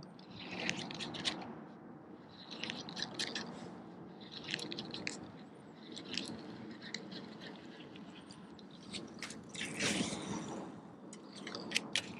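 Fishing reel being cranked in short bursts, each a cluster of crackly clicks about every second and a half, as a jerkbait is twitched and retrieved. A faint steady low hum runs underneath, with a louder rustling burst about ten seconds in.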